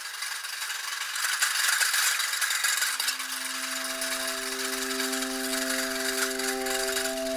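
A dense, fine rattling and clicking texture, loudest about two seconds in. From about two and a half seconds in, a chord of steady held drone tones fades in beneath it.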